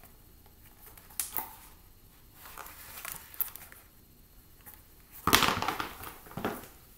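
Faint handling clicks, then about five seconds in a loud clatter and scuff as a pair of leather ballet flats is set down on a tile floor, with a shorter scuff just after.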